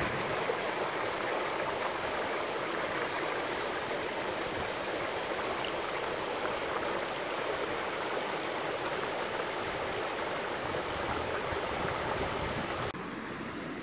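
Mountain torrent running over rocks and shallow riffles, a steady rushing of water. It steps down quieter about a second before the end.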